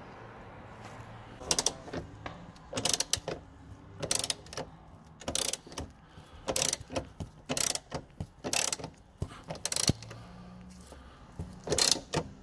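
Socket ratchet on an extension clicking in short back-and-forth strokes as a new tailgate strut bolt is turned. The bursts of pawl clicks start about a second and a half in and come roughly once or twice a second.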